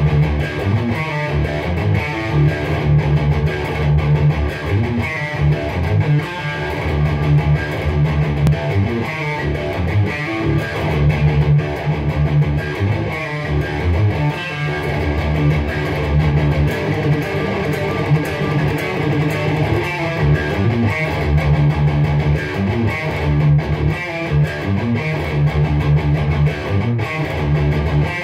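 Electric guitar playing groove metal riffs, with the low notes pulsing in a quick, steady chugging rhythm.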